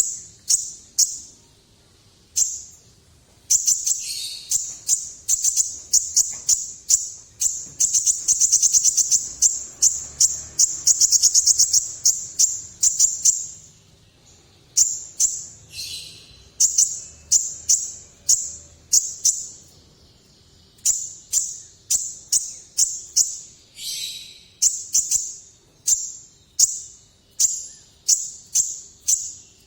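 Kolibri ninja sunbird singing hard: a long run of sharp, high chirps several a second, with a fast trill about a third of the way in and a few short pauses.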